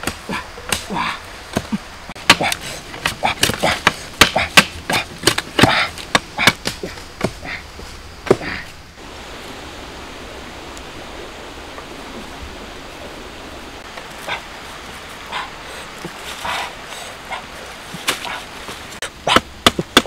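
Machete chopping green bamboo in a quick, uneven run of sharp knocks, with puppies yipping. About halfway through the chopping stops and a few puppy yips come over a steady background hiss; the chopping starts again near the end.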